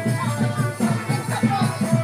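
Music with a fast, steady beat of about four beats a second.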